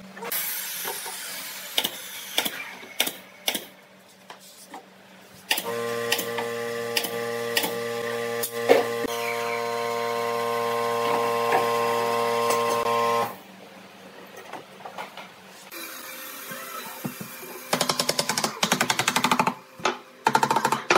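Workshop handling sounds: scattered knocks and clicks as pipe clamps are worked on a pine bench frame, with a steady humming tone for about eight seconds in the middle and a fast run of clicks near the end.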